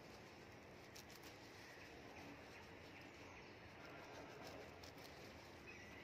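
Near silence: faint outdoor quiet with a few soft clicks and rustles of lettuce leaves being picked by hand, and faint bird chirps.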